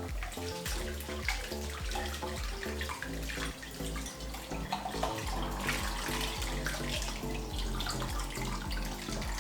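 Kitchen tap running into a sink while dishes are rinsed, with scattered light clinks of crockery and cutlery.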